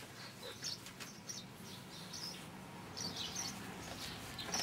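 Faint bird chirps: a few short, scattered high calls over a steady low hum.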